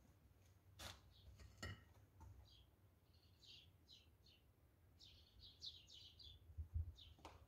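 Faint chirping of small birds: many short, high chirps in quick clusters, with a few sharp clicks.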